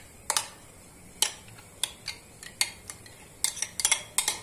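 Spoon clinking and scraping against a glass bowl as a thick yogurt-and-eggplant meze is scraped out onto a ceramic plate. A few scattered clinks, then a quicker run of them near the end.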